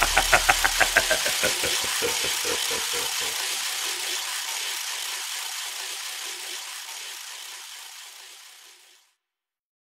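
Closing bars of a morenada band recording: a fast, even rhythmic pulse dies away in the first few seconds. A hissing wash then fades out to silence about nine seconds in.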